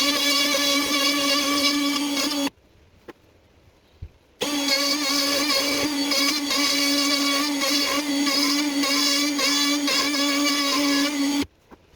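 Electric wood router with a 6 mm bit running at speed, a steady high whine. It runs in two bursts: it cuts off about two and a half seconds in, starts again about two seconds later, and stops shortly before the end.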